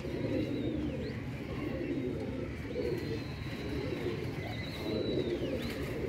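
Domestic pigeons cooing steadily, with a few thin, high, drawn-out tones above that each drop at the end.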